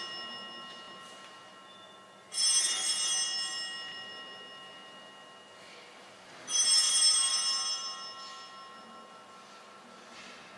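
Altar bell rung twice at the elevation of the host during the consecration, about two and six seconds in, each ring starting sharply with many high tones and fading over a few seconds; the tail of an earlier ring is fading as it opens.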